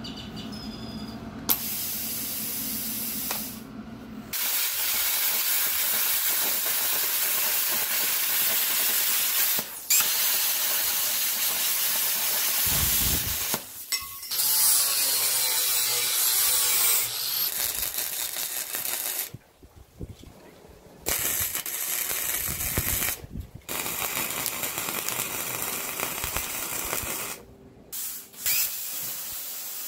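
CUT60 air plasma cutter cutting steel: a loud, steady hiss of the arc and air jet, stopping and restarting several times with short pauses between cuts.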